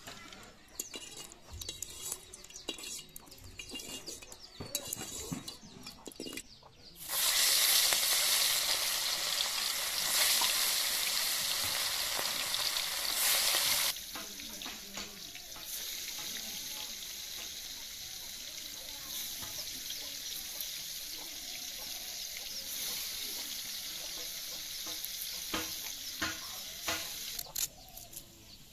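Turmeric-coated mrigal fish pieces frying in hot oil in an iron kadai. The sizzling starts suddenly and loud about a quarter of the way in, as the pieces meet the oil. About halfway it drops to a quieter, steady sizzle.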